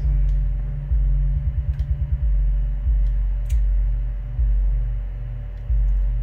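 A subwoofer playing loud, very deep bass notes that change about every two-thirds of a second, with a rapid stuttering run of short bass pulses about a second and a half in.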